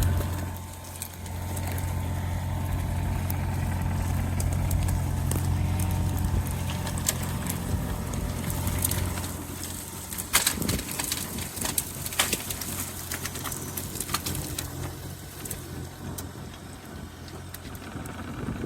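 Doosan DX35Z mini excavator's diesel engine running steadily, then from about ten seconds in a run of sharp cracks and snaps as dead ash wood and brush break under the machine.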